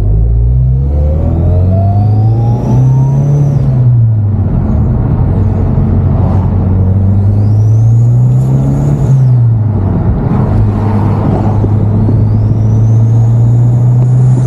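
Mitsubishi Lancer Evolution X's turbocharged 2.0-litre four-cylinder accelerating hard with its AMS Performance short ram intake: the engine note climbs and drops at two upshifts, then pulls again, with a high whistle rising over each climb. The intake is plainly heard, with little blow-off valve sound.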